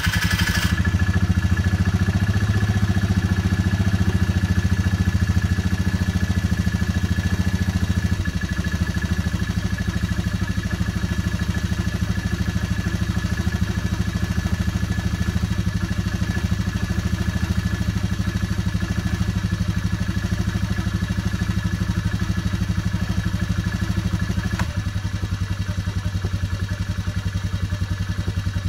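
Polaris Trail Boss 325 ATV's single-cylinder four-stroke engine idling steadily just after a hard cold start. It runs with an even exhaust pulse that drops a step in loudness about 8 seconds in and again a few seconds before the end.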